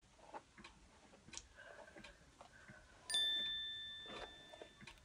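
Soft scattered clicks and rustles of a plastic hairbrush being drawn through a long, wavy human-hair wig. About three seconds in, a single bright chime sounds and rings out for nearly two seconds.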